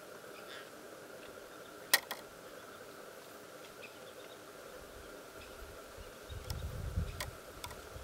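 Steady faint insect hum with tiny high chirps. About two seconds in there is a sharp double click, the loudest sound, and another click comes near the end. A low rumble rises in the last couple of seconds.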